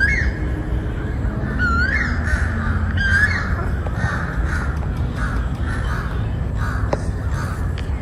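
A flock of crows cawing: three clear rising-and-falling caws in the first three seconds over a busy chorus of overlapping calls that thins out near the end. A steady low rumble runs underneath.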